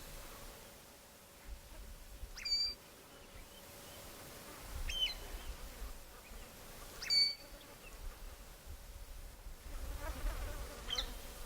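A bird gives single short, sharp, high chirps, four of them a couple of seconds apart, over a faint steady hum.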